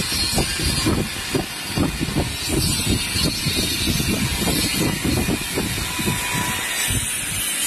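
TIG (argon) welding on stainless-steel tube: a steady hiss over an irregular low rumble of workshop noise.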